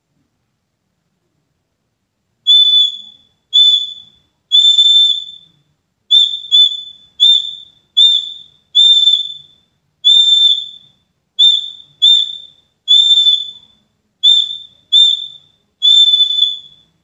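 Small handmade cangkring-wood pigeon whistle (sawangan) sounded in about fifteen short blasts from about two and a half seconds in. Each blast is a single steady high whistle tone that starts sharply and fades away.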